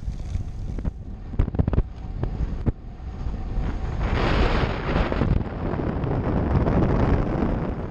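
Wind buffeting the microphone of a camera riding on a moving road bike, a steady rumble with a few sharp knocks in the first three seconds. It grows louder and hissier from about four seconds in as the bike moves along the open road.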